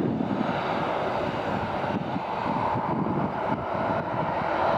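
Boeing 737-800's CFM56 jet engines running at taxi power as the airliner rolls past: a steady rushing jet noise.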